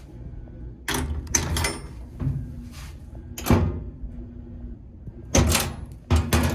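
A washing machine's sheet-metal panel being wiggled loose, popped up and folded over, giving a series of clunks and metal rattles. The loudest knocks come about three and a half and five and a half seconds in.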